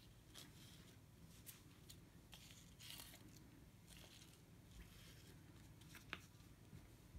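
Near silence, with faint soft ticks and rustles scattered through it: beading thread being pulled and knotted against the felt backing of a beadwork piece.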